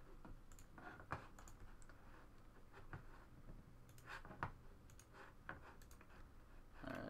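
Faint, irregular clicks and taps of a computer mouse and keyboard.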